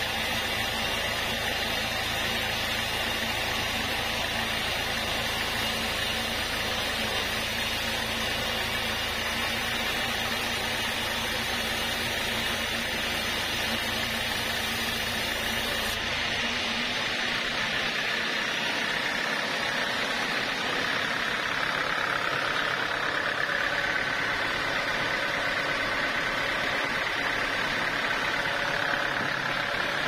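Band sawmill running steadily, its blade cutting lengthwise through a log of red hardwood. About two-thirds of the way in, the low rumble drops and a steady higher tone from the saw comes in.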